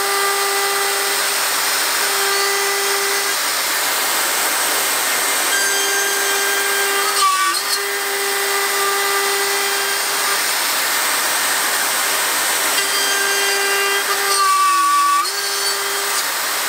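Handheld electric plunge router running at full speed, cutting a notch into a wooden board: a steady high motor whine over the hiss of the bit chewing wood. The whine's pitch sags briefly about seven seconds in and again near the end.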